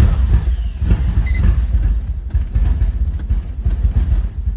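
Car engine turning over on the starter motor with a fast, even pulsing, cranking without catching: a no-start that the owner puts down to flooded cylinders.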